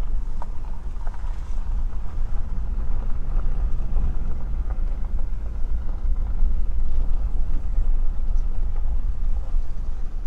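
Car driving slowly across a dirt lot, heard from inside the cabin: a steady low rumble of engine and tyres.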